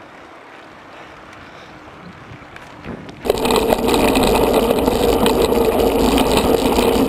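Mountain bike rolling over a gravel forest road, picked up by a camera mounted on the bike: a loud, steady rumble with dense rattling from tyre and frame vibration. It starts abruptly about three seconds in and cuts off sharply at the end. Before it there is only faint riding and wind noise.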